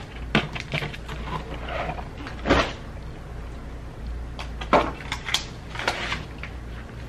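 Groceries and their packaging being handled and set down: scattered knocks and rustles, the loudest knock about two and a half seconds in.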